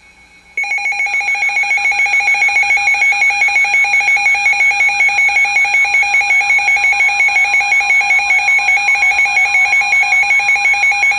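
Weather radio receiver's alert alarm sounding for a decoded warning: a loud electronic tone pulsing rapidly, about six times a second. It starts about half a second in and keeps going for roughly ten seconds.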